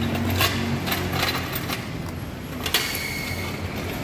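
Scattered metallic clicks and clinks of mechanics' hand tools, four or so sharp ones spread over a few seconds, over a low steady hum.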